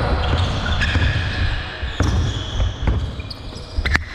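Basketball bouncing on a court during a pickup game, with sharp bounces about two, three and four seconds in.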